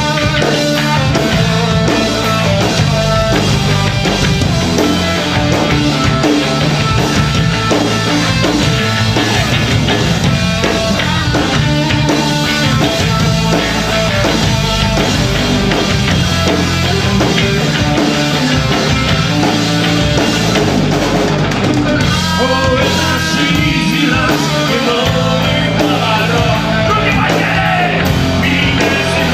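A rock band playing live and loud, with a drum kit driving the song.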